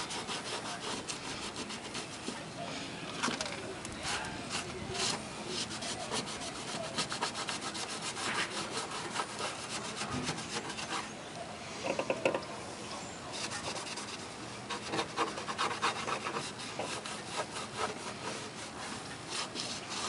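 Cleaning the driver's door frame of a truck where the rubber door seal mounts, in many quick rubbing, scrubbing strokes to prepare the surface for spray adhesive.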